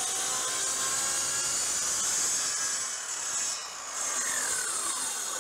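Hitachi handheld circular saw, guided along a track, ripping through a sheet of MDF with a steady high-pitched cutting noise. Near the end the blade finishes the cut and the motor's whine falls in pitch as it winds down.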